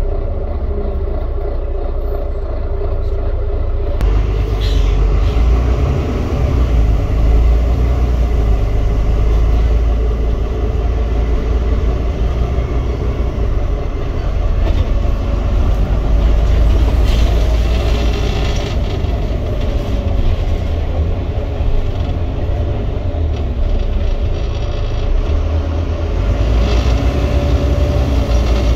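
Volvo B9TL Wright Gemini double-decker bus on the move, heard from the upper deck: a steady low rumble from the engine and drivetrain with road noise and a few brief clatters from the body.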